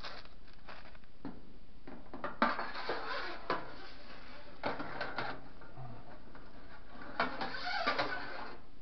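Flexible claw pickup tool clicking and scraping against the lint-screen slot of a clothes dryer as it is worked down into the lint chamber, in irregular clusters of clicks and rattles.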